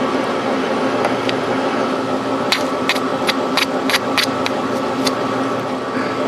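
Metal lathe running with a steady hum of several fixed tones. About midway comes a quick run of about eight sharp clicks over two or three seconds.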